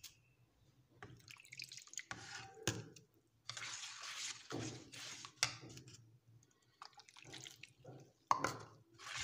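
A spoon stirring a thin cocoa, sugar and milk mixture in a pot: liquid sloshing in irregular bursts, with a few sharp clicks of the spoon against the pot.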